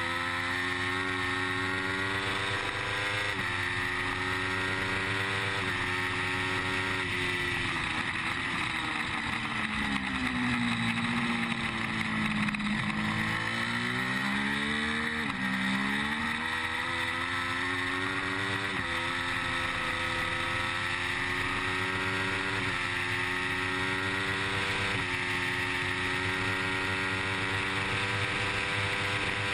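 Triumph Street Triple's 675 cc inline-three engine at racing speed with wind rush, heard from the bike: it climbs through the gears with several upshifts, falls in pitch as the rider brakes and shifts down about a third of the way in, then accelerates hard again through a run of upshifts.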